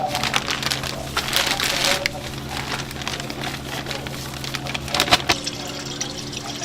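Kitchen work at a fried chicken stall: clattering and knocks of utensils, with a wet, hissing burst between about one and two seconds in, over a steady hum of kitchen equipment.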